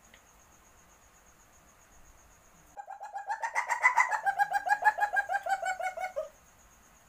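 Asian palm civet's mating call, the call of a civet in heat: a rapid chattering run of pitched notes, about eight a second. It starts about three seconds in, lifts slightly in pitch, then eases down and stops after some three and a half seconds.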